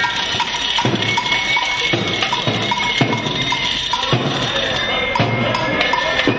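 Protest marchers beating hand-held percussion noisemakers: uneven metallic clanging, roughly two strikes a second, with a lingering ringing tone, over the general din of the march.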